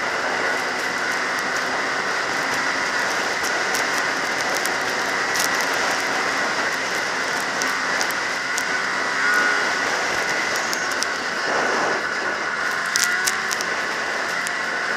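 Ski-Doo MXZ snowmobile's two-stroke engine running steadily at cruising speed, heard from the rider's seat.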